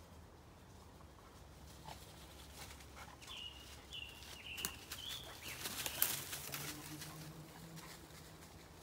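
Rustling and crackling in forest undergrowth, thickest a few seconds in, with three or four short high chirps about half a second apart, typical of a small bird.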